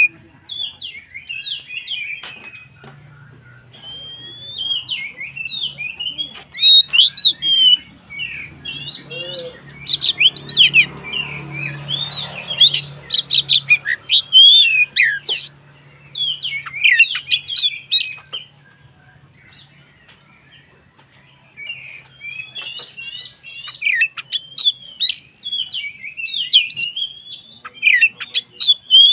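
Oriental magpie-robin (kacer) in full, vigorous song: a rapid, varied run of chirps, trills and sharp whistled notes, breaking off for about three seconds past the middle before starting again.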